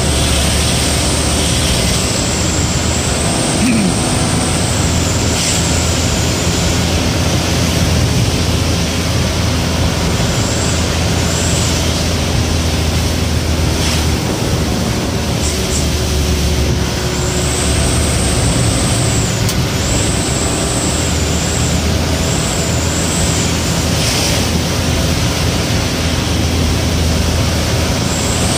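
Bus running at speed on a wet road, heard from inside the driver's cab: a steady low engine drone under a constant hiss of tyres on wet tarmac, with a few faint clicks.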